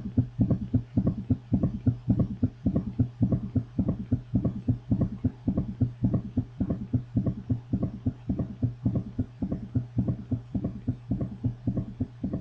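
Recorded heart sounds of a summation gallop: a fast heartbeat, over 110 a minute, in which S3 and S4 fall together into one extra sound, giving a rapid galloping rhythm of low thumps; mostly a sign of heart failure. A steady low hum runs underneath.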